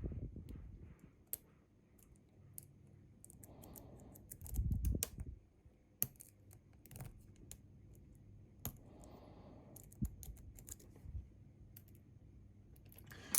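Scattered small metallic clicks and ticks of lock picks and a tension tool working in a Bi-Lock cam lock, with a couple of soft handling bumps.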